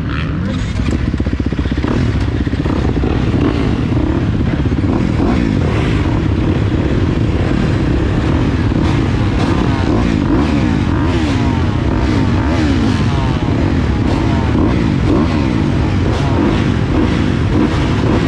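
A row of motocross bikes running together while waiting behind the start tape, with several engines rising and falling in pitch over one another as the riders blip their throttles.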